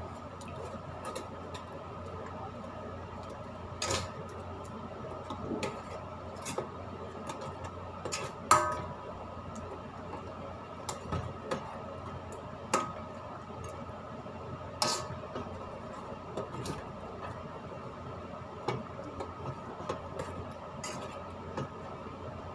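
A spoon stirring in a cooking pot, with scattered clinks and knocks against the pot. The sharpest comes about eight and a half seconds in, and another near fifteen seconds. A steady hum runs underneath.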